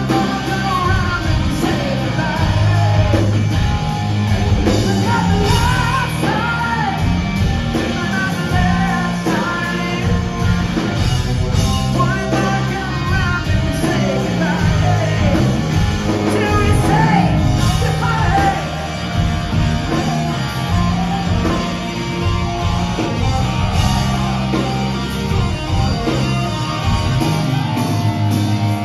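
Rock band playing live, loud: electric guitars, bass guitar and drum kit, with a pitch-bending lead line over them.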